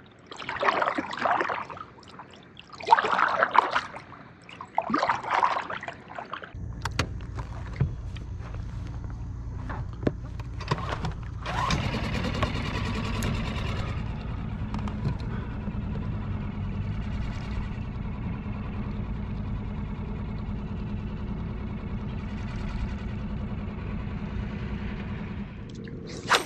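Small gas outboard motor on a micro skiff running underway: a steady low rumble that comes in suddenly about six seconds in and gets louder and fuller about twelve seconds in, then holds steady.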